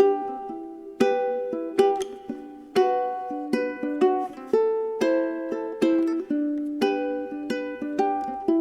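Background music: a plucked-string tune, ukulele-like, with notes picked out about every half second and each ringing down.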